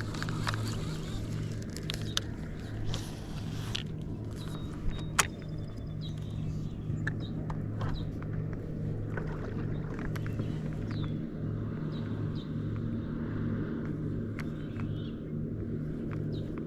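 Steady low motor hum from a bass boat's electric trolling motor, with scattered light clicks and taps over it and one sharper tap about five seconds in.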